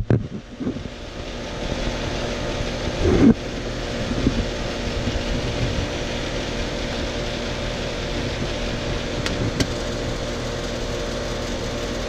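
Outdoor HVAC unit running with a steady mechanical hum, with a short knock about three seconds in.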